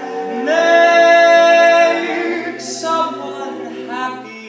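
Male a cappella group singing close harmony with no instruments: a chord slides up and swells about half a second in, is held, then softens toward the end.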